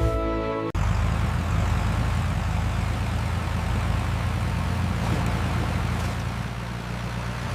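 Tractor engine running steadily, a low drone with a hiss over it, cutting in abruptly after a moment of music.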